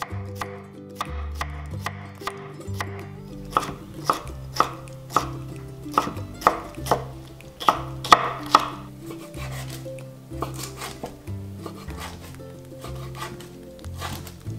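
Kitchen knife slicing onion and green pepper on a wooden cutting board: a regular run of sharp taps on the board, about two a second, loudest in the middle, over soft background music.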